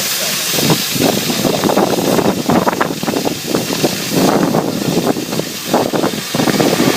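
Oxy-fuel flame cutting torch hissing loudly and steadily, with dense irregular crackling as it cuts steel plate.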